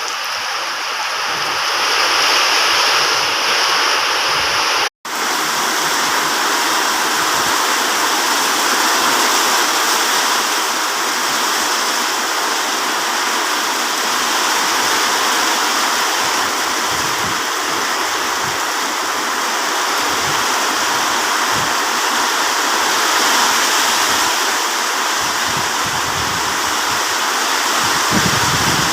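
Heavy rain pouring down in a steady, loud hiss. About five seconds in, the sound cuts out for a split second.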